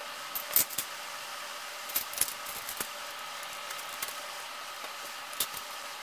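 Lego bricks clicking and clattering as pieces are picked from the pile and pressed onto the model: a few sharp clicks in small clusters, over a steady hum.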